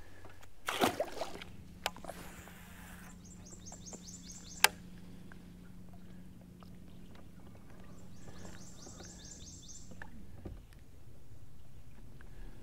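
A splash about a second in as a caught bass is dropped back over the side of the boat, then a cast with a baitcasting rod. A steady low hum runs underneath, with short spells of fast ticking as the baitcasting reel is cranked and a single sharp click in between.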